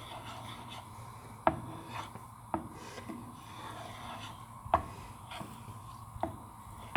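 A spoon scraping and stirring sugar as it melts into caramel in a frying pan, with four sharp clicks spread through the stirring.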